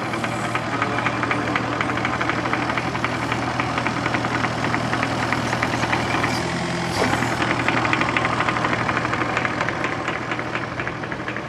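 Machine engine running steadily with a fast, even knocking rattle; the note shifts about seven seconds in.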